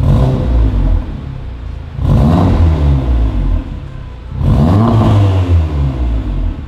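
Volkswagen Golf R Mk7's turbocharged 2.0-litre four-cylinder revved three times in quick succession, each rev rising and then falling back toward idle. The sound comes through a de-catted Armytrix exhaust with its valvetronic muffler valves closed.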